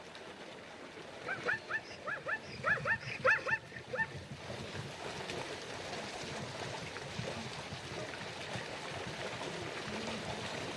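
An animal giving a quick run of about a dozen short, high yelping calls over roughly three seconds, then a steady outdoor noise.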